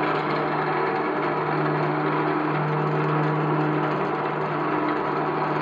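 Babbacombe Cliff Railway's haulage cable running over its track pulleys while the cars travel, a steady mechanical whirr with an even hum.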